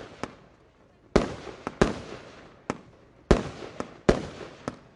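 Evolution Fireworks 'Limited Edition 3' 75-shot compound firework cake firing: four loud bangs in two pairs, with fainter sharp cracks between them, each loud bang trailing off in a crackling tail.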